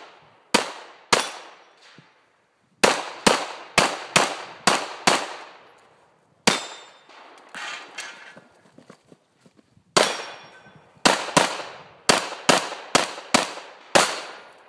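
Glock 34 9 mm pistol fired in quick pairs and short strings, more than a dozen sharp cracks, each trailing off briefly, with pauses of one to three seconds between strings and the longest pause near the middle.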